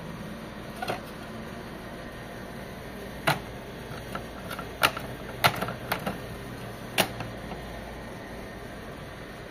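Sharp plastic clicks and knocks from a partly disassembled HP Officejet 7612 inkjet printer being handled: about six irregular clicks, most of them in the middle seconds, over a steady hiss.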